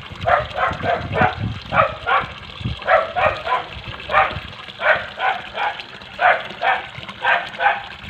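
A dog barking over and over in quick runs, about two to three barks a second.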